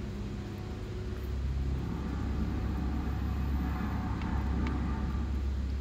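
Steady low outdoor rumble, with a couple of faint crunches about four and a half seconds in as a cat chews dry kibble from a plastic bowl.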